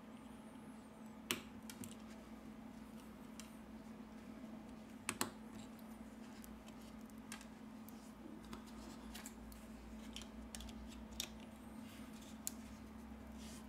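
Scattered small sharp clicks and taps of tools and smartphone parts being handled during reassembly, over a steady faint electrical hum.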